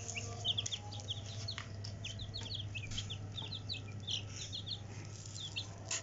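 A group of chicks peeping: many short, high, falling cheeps in quick succession, over a steady low hum.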